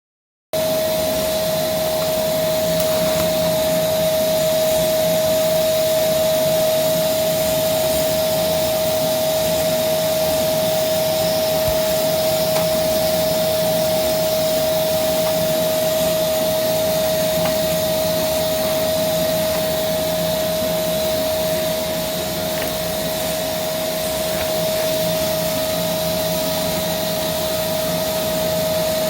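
Vacuum cleaner (hoover) running steadily, a continuous motor drone with a strong steady whine; it starts about half a second in.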